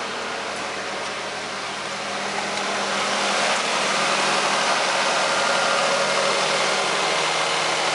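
1997 Toyota Camry engine idling steadily right after starting, growing a little louder about three seconds in. It started right up on a freshly rebuilt Denso starter.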